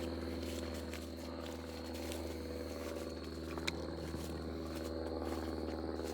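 Propeller airplane droning overhead, a steady hum with a pitched tone that holds through, and a single sharp click about three and a half seconds in.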